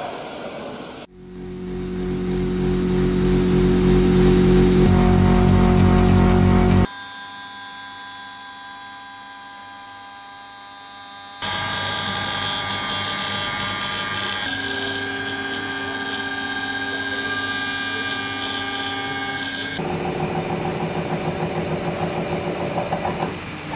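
CNC mill-turn machines cutting steel, in several short clips that change abruptly every few seconds: steady spindle whine and cutting noise, at a different pitch in each. Near the end, a rapid pulsing as a disc cutter works a rotating shaft.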